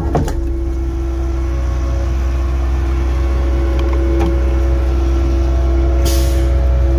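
Concrete pump truck's engine running steadily with a constant low hum, with a brief hiss about six seconds in.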